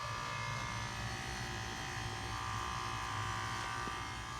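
2006 Nordic Air heat pump buzzing steadily while its outdoor fan stands still, a low hum under a higher electric buzz.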